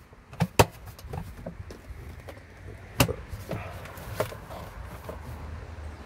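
Plastic clicks and knocks from a portable car fridge's lid being opened and handled while its coiled power cord is taken out from inside. The sharpest knocks come just after the start and about three seconds in, with lighter ones between.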